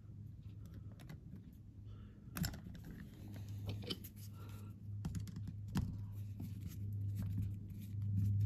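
Small carburetor screws and spacers clicking and tapping as they are picked up and fitted by hand to a Solex carburetor's choke cover: scattered light clicks, the clearest about two and a half seconds in, over a steady low hum.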